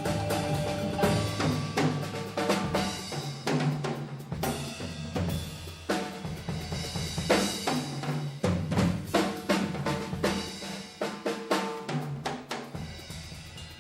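Drums and percussion playing a busy rhythm of many strikes, with low pitched notes underneath.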